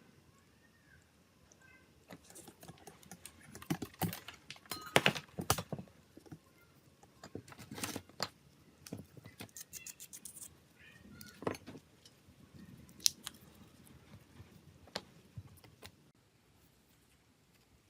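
Small hard clicks, taps and light scrapes of phone parts and hand tools being handled, in irregular runs with a quick rattle of clicks near the middle.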